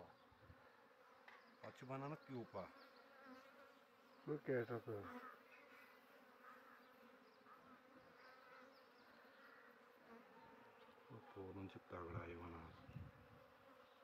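Faint steady hum of an open Asian honeybee (Apis cerana) colony, bees crowding the comb frames. A person's voice comes in briefly three times, about 2, 4.5 and 12 seconds in.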